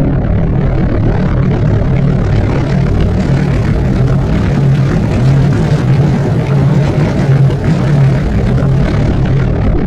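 Propeller-driven aircraft motor running steadily: a low droning hum over a rushing noise.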